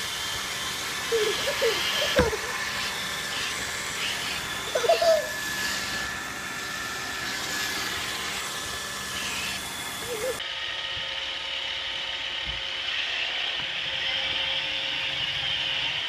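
Roomba robot vacuum running with a steady whir of its motors and brushes, its tone changing about ten seconds in. A small child gives a few short squeals over it, with a bump about two seconds in.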